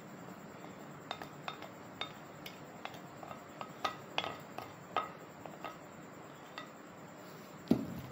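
Spoon scraping chopped coriander off a plate into a glass bowl: a run of light clinks and taps of the spoon on the plate and bowl, then a louder knock near the end.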